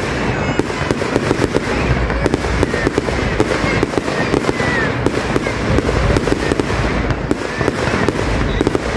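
Aerial fireworks bursting overhead: a dense, continuous run of rapid pops and crackling.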